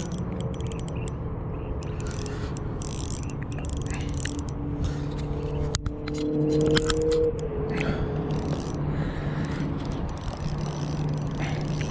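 Spinning reel being cranked to bring in a hooked trout, with scraping clicks over a steady low hum. There is a sharp click about six seconds in.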